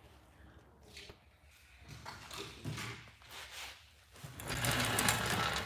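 Faint clatter and handling noise of sanding blocks being fetched from a tool drawer, getting louder in the last second or so.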